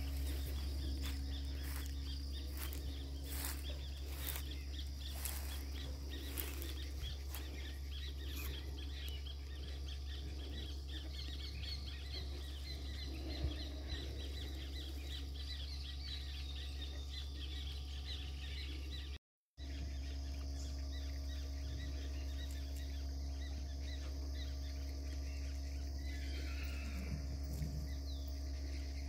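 Outdoor pond-side ambience: insects chirring steadily under a constant low hum, with scattered clicks in the first third and a short call near the end. The sound cuts out completely for a moment about two-thirds of the way through.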